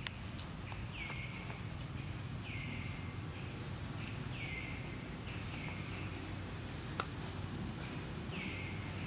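Outdoor ambience: a steady low background rumble with short falling chirps repeating irregularly about once a second. A single sharp click comes about seven seconds in.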